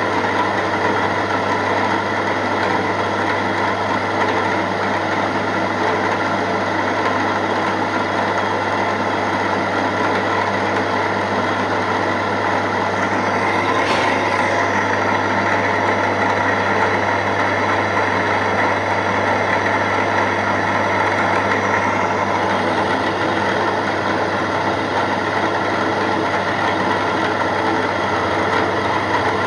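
Milling machine spindle running steadily while a 3 mm end mill cuts a small square pocket in a metal slide valve, a constant mechanical hum with one brief click about halfway through.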